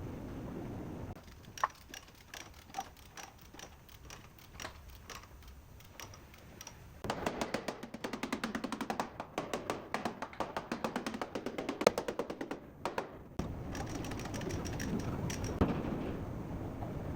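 Sharp knocks and taps from tool work on a car frame rail, scattered at first, then a fast run of strikes for several seconds.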